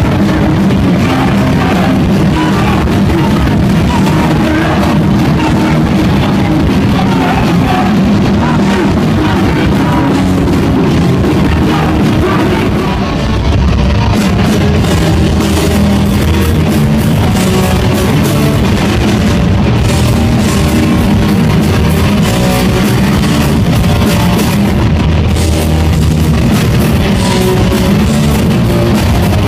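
Hardcore punk band playing live at full volume: distorted electric guitars, bass and drum kit, heard from within the crowd.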